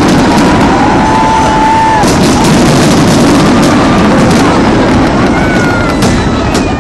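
Fireworks bursting in rapid, continuous volleys, loud and dense, with a few thin whistles rising over the din.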